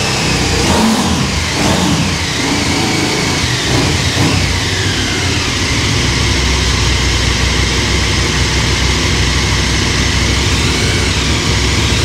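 KTM 1290 Super Adventure S's V-twin engine blipped through a few rising and falling revs over the first several seconds, then settling to a steady idle.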